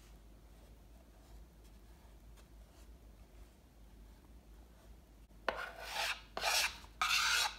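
Wooden cake turntable turned by hand in short pushes while a spatula is held against the buttercream on the cake's side, giving three rasping scrapes in quick succession near the end after a mostly quiet start.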